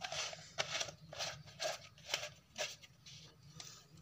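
Hard plastic drinker parts handled and turned in the hands: a run of short scrapes and clicks, about two a second.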